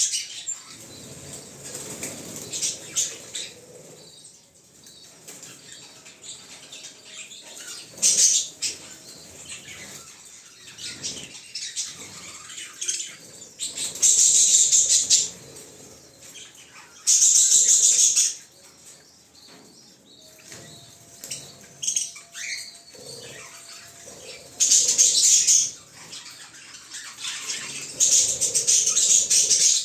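African lovebirds flapping their wings in five short bouts of about a second each, with soft chirps and small sounds between.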